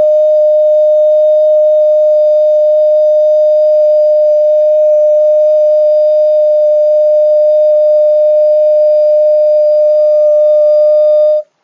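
A single loud, steady pitched tone with overtones, held without a break and cutting off suddenly near the end.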